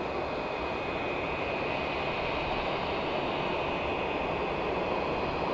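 Boeing 787-10 jet engines at low taxi power as the airliner rolls slowly: a steady rushing noise with a thin, steady high whine.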